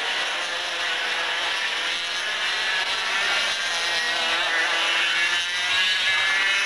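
A pack of racing karts with two-stroke Parilla engines running at high revs, several engine notes overlapping and rising and falling as they pass.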